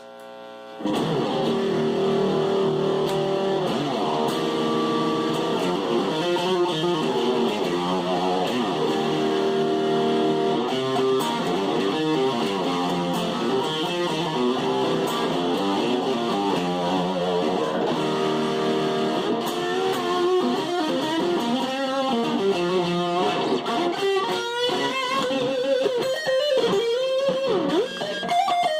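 Stratocaster electric guitar played through a Chase Tone Fuzz Face fuzz pedal, with the Mega-Vibe off: a fuzzy lead line of held notes, starting about a second in, with notes that bend in pitch near the end.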